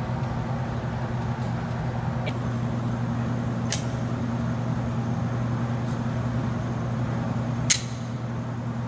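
Steady low hum of an indoor range's ventilation, with a few sharp clicks from a pistol being handled at the bench; the loudest click comes near the end.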